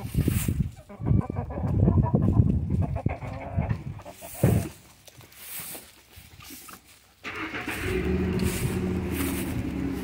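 An engine starts abruptly about seven seconds in and runs steadily with a low hum, after a few seconds of uneven lower noise.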